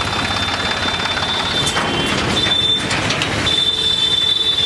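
Tractor engine running with busy street noise, and a thin steady high-pitched whine over it.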